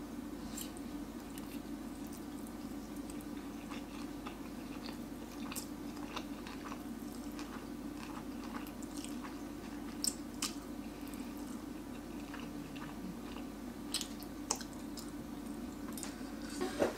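A person eating spicy instant noodles close to the microphone: chewing, with scattered short clicks and smacks, over a steady low hum.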